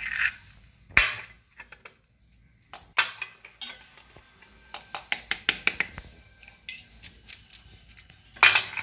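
Eggs being cracked open with a knife over a stainless steel bowl: sharp taps and metal clinks in quick runs, the loudest about a second in and near the end.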